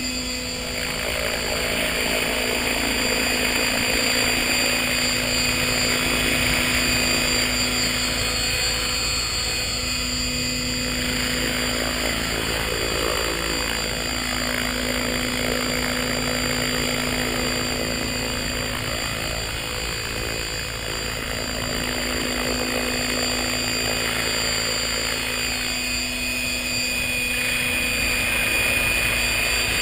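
Align T-Rex 600 RC helicopter running: a steady whine from its main rotor and drivetrain as it hovers and flies, the pitch dipping briefly a few times as it manoeuvres. It is being test-flown with its vibration problems repaired.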